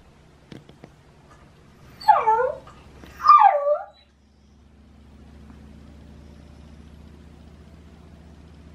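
Male Shiba Inu giving two whining cries about a second apart, each sliding steeply down from a high pitch to a low one. The owner frames them as an autumn mating-season 'love cry'. From about four seconds in, a steady low hum follows.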